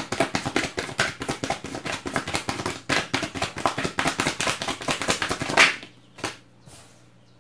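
A tarot deck being shuffled by hand: a quick, dense run of card clicks and slaps that ends about five and a half seconds in with one louder slap. A few soft, separate taps follow.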